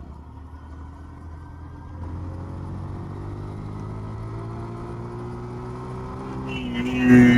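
Motorcycle running on the road while another vehicle comes up and passes close by. The passing engine's tone grows louder and drops slowly in pitch, and it is loudest with a rush of noise near the end.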